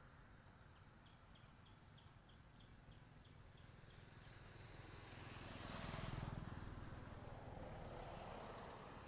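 Faint outdoor ambience. A quick series of short, high chirps comes about four a second for a few seconds. Then a rushing sound swells and fades, loudest about six seconds in.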